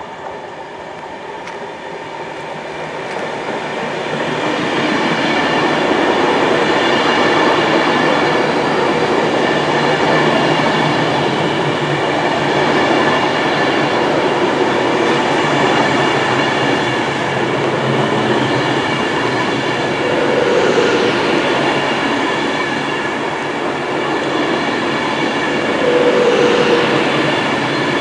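Avanti West Coast Class 390 Pendolino electric train approaching and running past. The rumble of its wheels on the rails builds over the first few seconds, then holds loud and steady, with a steady whine over it.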